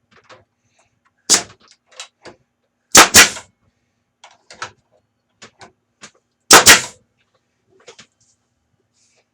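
Sharp knocks on wood: a loud one about a second in, then two doubled knocks around 3 and 6.5 seconds, with light taps and clicks of boards being handled in between.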